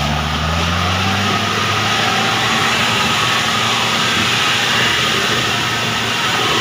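Modified Suzuki Jimny's engine revving hard under full load on a steep rocky climb. Its pitch rises over the first second, then it holds at a loud, steady high-rev run.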